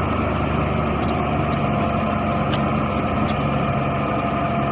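Heavy dump truck's diesel engine running steadily at a low, even pitch while the raised bed tips out a load of sand.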